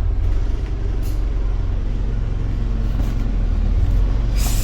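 Bus engine running steadily, heard from inside the bus as it manoeuvres. A short hiss of air comes near the end.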